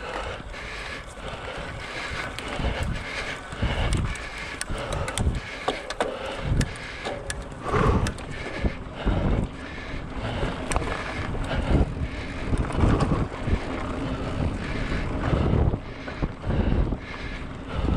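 Wind buffeting the microphone of a camera on a moving bicycle, in irregular low gusts, with scattered clicks and rattles from the bike.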